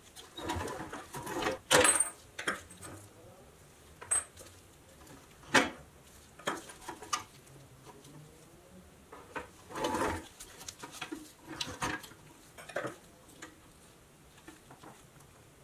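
Irregular metal clinks, knocks and rubbing as the wheels and hubcaps of a 1962 Tonka Motor Transport toy truck are handled and worked off. The loudest clatter comes about two seconds in.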